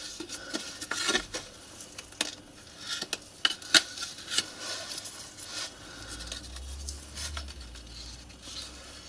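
Handling noise of a sheet of paper being laid out and small metal screws being set down on it by hand: soft rustles with irregular light clicks and taps.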